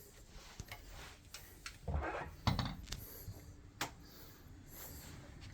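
A series of knocks and clattering thumps from wooden bed parts being handled and bumped, loudest about two and two and a half seconds in.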